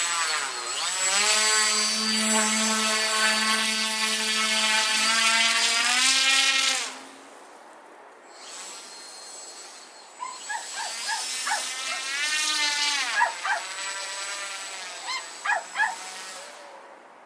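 Small electric motor of a K'nex RC ski vehicle whining, its pitch sliding up and down as the throttle changes. It drops away about seven seconds in and picks up again around nine seconds, with a few short, sharp high chirps over it in the second half.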